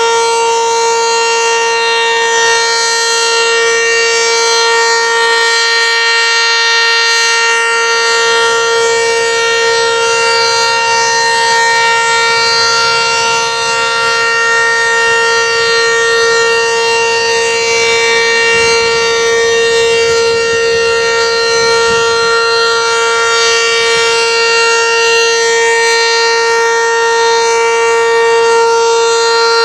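ACA Banshee electromechanical outdoor warning siren sounding its weekly test, holding one loud, steady tone that neither rises nor falls.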